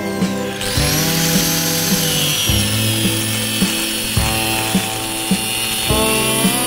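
A power tool starts about half a second in and runs on metal, its high whine slowly dropping in pitch as it works. Background music with a steady beat plays underneath.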